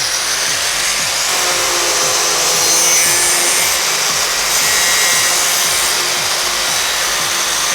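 Power grinder running steadily, its disc grinding against the face of a touchscreen door lock, with a loud, continuous high-pitched grinding noise.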